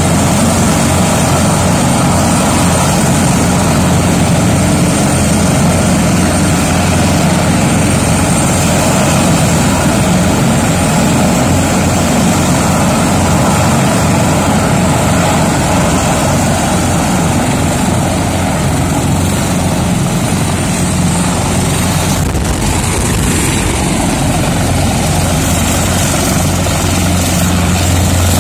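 Military transport helicopters running on the ground with their rotors turning: a loud, steady rotor and turbine noise with a low hum and a thin high whine.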